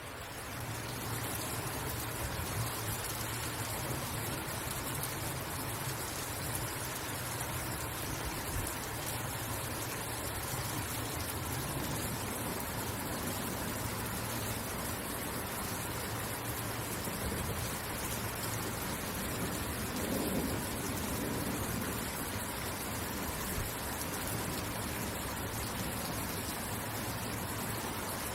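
Steady rain falling, an even hiss of drops, with a brief deeper swell about two-thirds of the way through.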